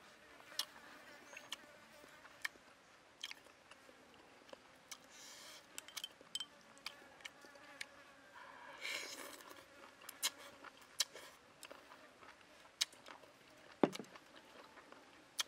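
A man eating noodles and seafood with chopsticks: repeated sharp mouth smacks and clicks, with a longer slurp of noodles about nine seconds in. A faint steady drone of insects runs underneath.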